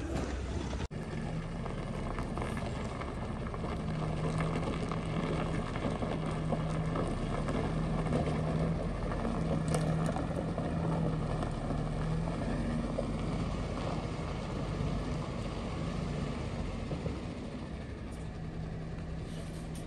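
A heavy 16-wheel truck's diesel engine running steadily with a low hum, broken by a brief dropout about a second in.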